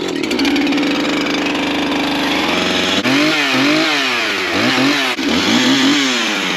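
Husqvarna 365 two-stroke chainsaw engine just started. It runs steadily for a couple of seconds, then is revved up and down several times.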